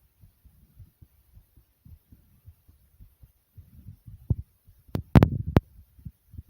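A person's heartbeat recorded close to the chest: soft, fast, low thumps repeating throughout. About four to five and a half seconds in come a few much louder sharp knocks.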